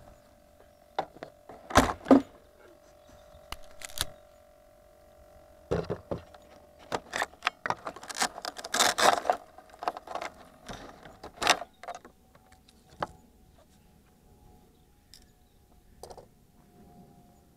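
Knocks, clicks and short rattles of a radio-controlled glider being handled and set down on a wooden bench, close to the model's onboard camera, loudest about two seconds in and again around nine seconds; after about twelve seconds only an occasional knock. A faint steady whine runs under the first few seconds and returns near the end.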